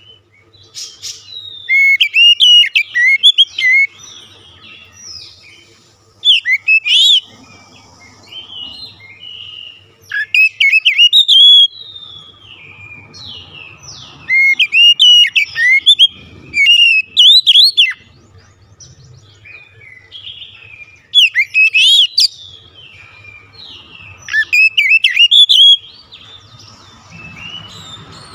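Oriental magpie-robin singing loudly in bursts of rapid, varied whistled notes that glide sharply up and down, a new burst every few seconds with short pauses between.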